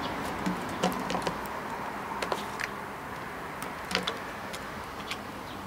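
Plastic drink bottle crackling and clicking as a Shiba Inu bites and paws at it. The clicks come irregularly, and the sharpest are about a second in and about four seconds in.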